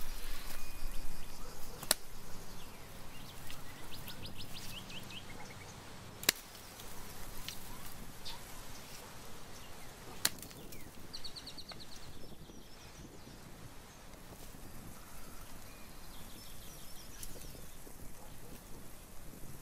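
Three sharp axe strikes, a few seconds apart, with the middle one the loudest. Birds chirp in short trills in the background.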